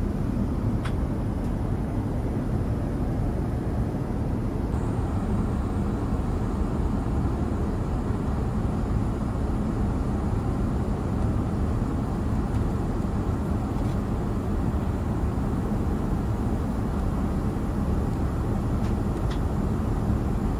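Airbus A350-900 cabin noise in flight: a steady, even rumble of airflow and engines. A few faint clicks come about a second in and again near the end.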